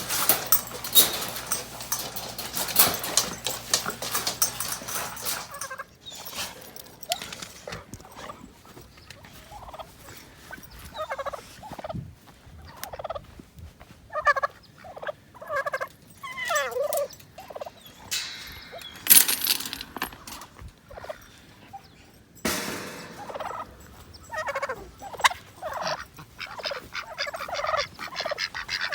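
Domestic turkeys gobbling in a series of short, wavering calls, with a few seconds of rustling and clicking at the start and two brief rushes of noise past the middle.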